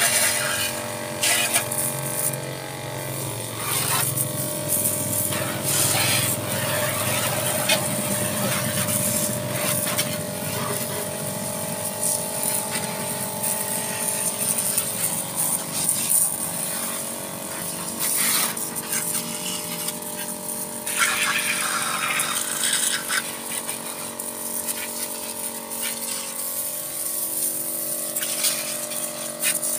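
A 12-volt DC mini water pump running with a steady hum, while its jet hisses and splatters against a scooter's wheels and bodywork, the spray louder in short spurts now and then.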